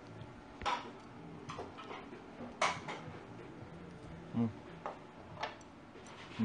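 Scattered light clicks and knocks of sushi plates and chopsticks being handled at the table, about seven in all, at irregular intervals.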